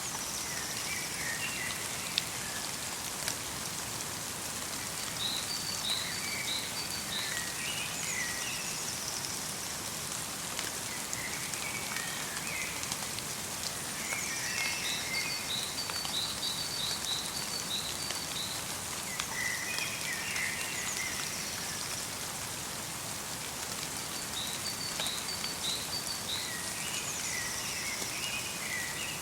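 Light rain pattering steadily in a winter forest. Small songbirds call over it in short chirping phrases that come back every few seconds.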